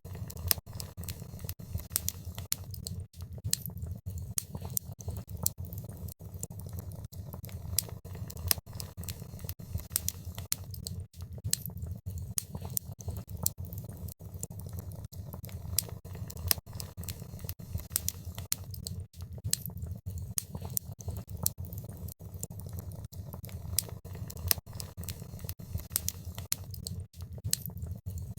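Fire in a fireplace crackling: a dense, irregular stream of sharp pops and snaps over a steady low rumble.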